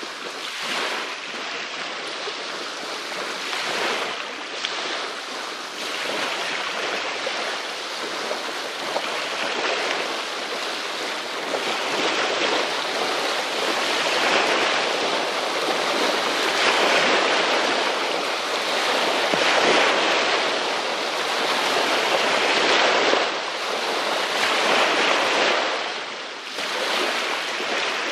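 Small river waves lapping and washing onto a pebble-and-shell shore, in a continuous hiss that swells and ebbs every second or two.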